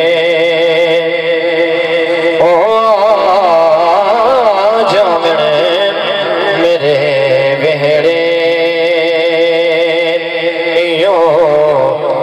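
A man singing a Punjabi devotional kalam (naat) into a microphone, holding long steady notes near the start and again from about seven to eleven seconds in, with a wavering, ornamented vocal run in between.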